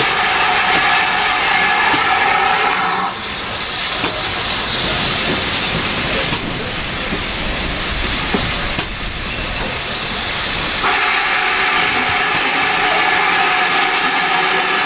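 Steam locomotive 7822 Foxcote Manor hissing steam throughout. A louder, pitched blast of steam comes in two spells: for the first three seconds or so, and again for the last four.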